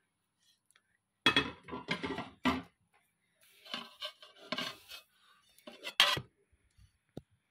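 Kuznetsov porcelain plates knocking and clinking against one another as they are handled, with a stretch of scraping in the middle. There are several sharp clinks in the first half, another strong one about six seconds in, and a brief ringing clink near the end.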